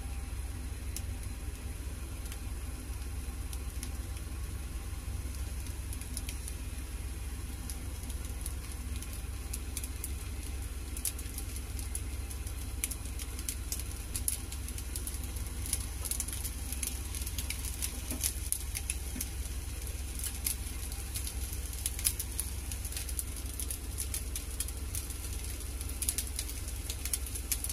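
Fried rice sizzling in a non-stick wok, with crackling pops that grow more frequent about halfway through, over a steady low hum.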